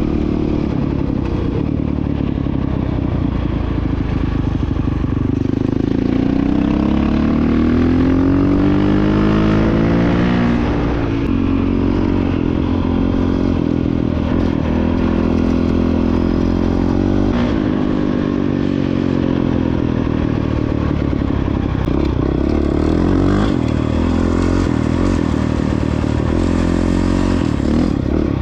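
Honda CRF450X dirt bike's single-cylinder four-stroke engine running under way. Its pitch climbs and drops back several times as the throttle is worked.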